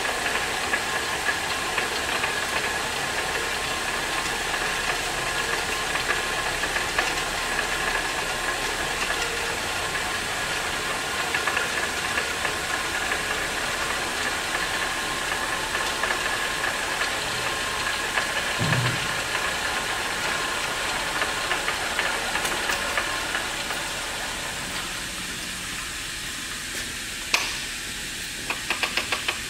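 Wells 8-M-42 horizontal band saw running: a steady whir with hiss, a high whine and light ticking. About 24 seconds in it shuts off and fades away, then comes a sharp click and, near the end, a quick run of clicks.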